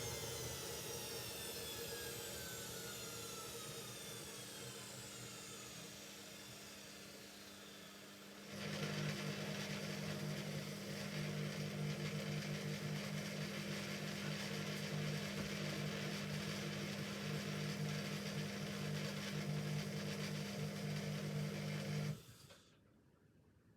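Hoover Ecologic Computer Washer 1300 coasting down after its spin: the drum motor's whine falls in pitch and fades. About eight seconds in, a steady hum, typical of the drain pump, starts abruptly and runs until it cuts off suddenly near the end.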